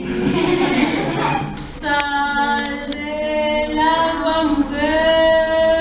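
A woman singing unaccompanied in long held notes, the opening of a Mexican children's song about a shark. Her singing starts about two seconds in, after a mix of room noise and voices.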